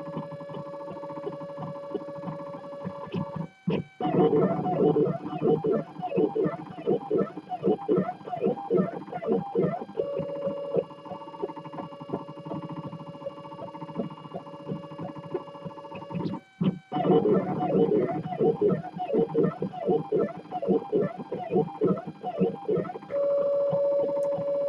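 3D printer stepper motors whining as the print head moves: a steady held tone alternates with stretches of quick back-and-forth moves whose pitch swoops up and down two or three times a second. The tone drops out briefly twice as the motion changes.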